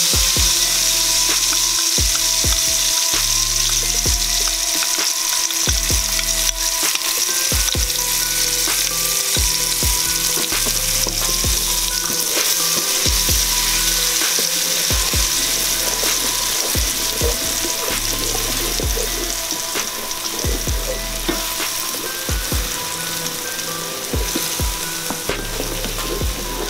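Curry spice paste frying in hot oil in an aluminium pot, sizzling steadily, with a wooden spatula stirring it and knocking and scraping against the pot in many short clicks. The sizzle eases a little in the last few seconds.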